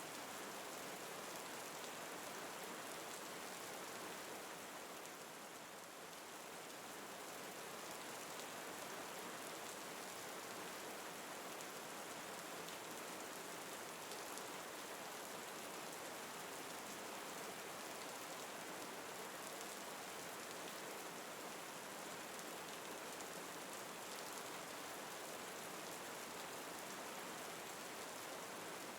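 Steady rain falling and pattering on leaves and surfaces, a soft even hiss with no thunder.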